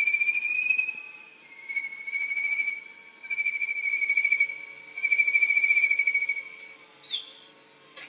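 Synthesised birdsong from a bird automaton's small box speaker: four long, slightly warbling whistled notes of about a second each, then a short falling chirp near the end.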